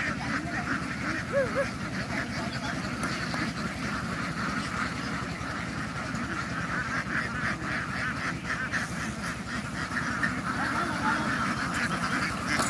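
A large flock of ducks quacking together in a dense, continuous chatter.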